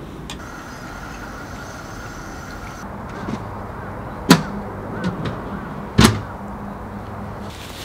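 Two loud, sharp knocks about a second and a half apart, with a few smaller clicks around them, over a steady low hum.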